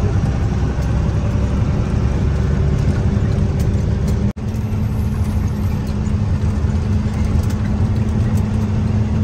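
Diesel truck engine running steadily on the road, a dense low rumble with a steady hum. The sound cuts out for an instant about four seconds in, then carries on the same.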